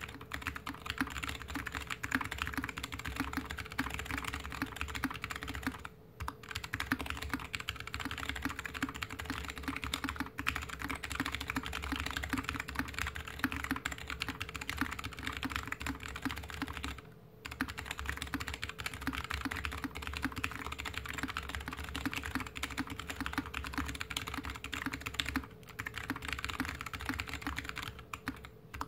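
Fast typing on a GK61X mechanical keyboard with stock Kailh BOX Mute Jade switches, a stainless steel plate and DSA keycaps, set on a desk mat. It is a dense, continuous clatter of keystrokes broken by a few short pauses.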